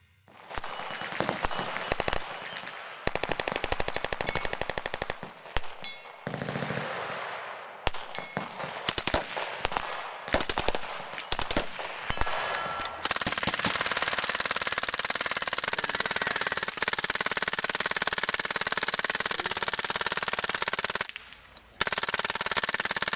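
Full-automatic machine-gun fire: bursts of rapid shots, then a long unbroken stretch of very fast fire that stops briefly near the end and starts again.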